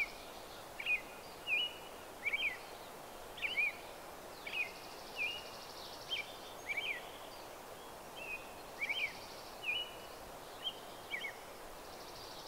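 Birds calling in a forest, repeating short chirping notes about once a second, with a high buzzy trill now and then, over a steady faint hiss.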